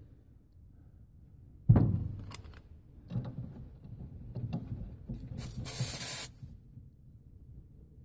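A sharp clunk, some scattered handling knocks, then about a second of loud hissing that starts and stops abruptly: refrigerant escaping as a gauge hose is fitted to a heat pump's service port.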